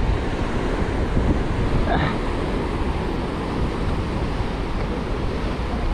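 Ocean surf washing over the rocks at the foot of a sea cliff, a steady rush, with wind rumbling on the microphone.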